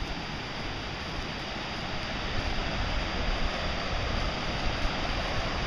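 Steady rushing of river water, slowly growing louder.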